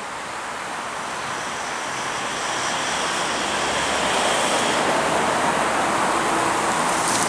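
Road traffic on a busy road: a passing vehicle's tyre and engine noise, a steady rush that swells gradually over several seconds.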